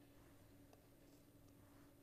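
Near silence: room tone with a faint steady hum and a couple of faint ticks.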